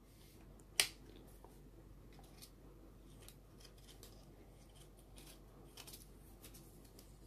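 Handling of a metal belt sander attachment and a sanding belt being worked onto it: one sharp click less than a second in, then light rustling and small clicks.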